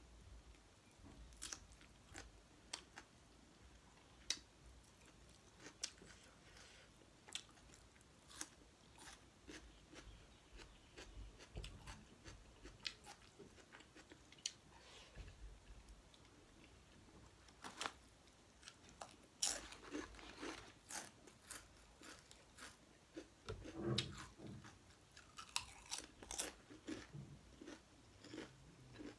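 Close-up mouth sounds of a person eating rice and pork curry by hand: chewing and smacking with scattered crunchy bites. The sounds come as irregular sharp clicks that bunch together and grow louder in the second half.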